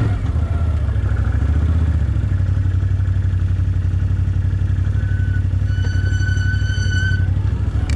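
Can-Am Outlander quad's engine running steadily at low speed as the machine creeps down a grassy dirt track. From about five seconds in, a high, steady whistle-like tone sounds for about two seconds.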